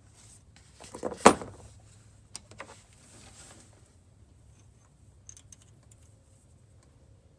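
Metal hand tools being handled: a few sharp clinks and knocks, loudest about a second in, then lighter clicks and a soft rustle.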